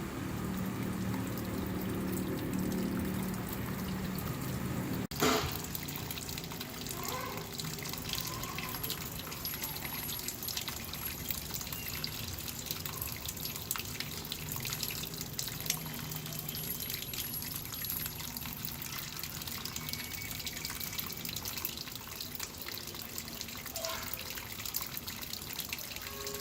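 Water trickling and splashing steadily down a small hand-built brick-and-cement garden waterfall. The sound cuts abruptly about five seconds in, and after the cut the splashing is lighter.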